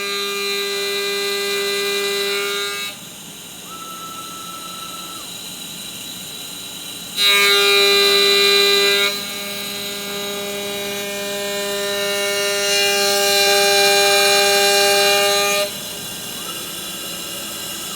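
DIY CNC machine's spindle running with a steady high whine while the cutter takes facing passes, skimming the workpiece flat. The cutting noise comes and goes, loudest around seven seconds in and again from about twelve to fifteen seconds, ending abruptly each time.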